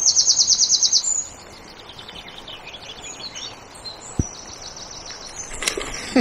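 A songbird sings a loud, rapid trill of high notes, about ten a second, for roughly the first second, then softer short high phrases. Beneath it runs the steady rush of fast-flowing river water.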